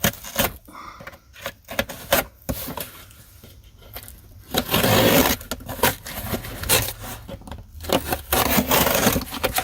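Cardboard shipping box being opened and its contents handled: scattered taps and short scrapes, then longer stretches of loud cardboard scraping and rustling from about halfway through and again near the end.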